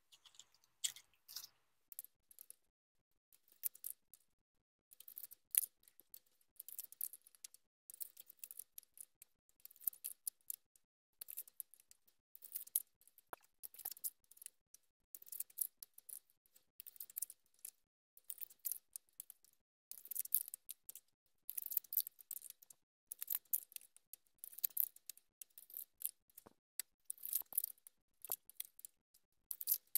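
Paper pyramid boxes being opened and plastic-wrapped bánh ít lá gai cakes handled: short bursts of crisp crinkling and rustling, again and again with brief pauses.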